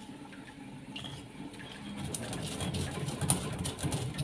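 Stone pestle grinding garlic cloves and salt in a stone mortar: irregular scraping and crunching with sharp stone-on-stone clicks, picking up about halfway through.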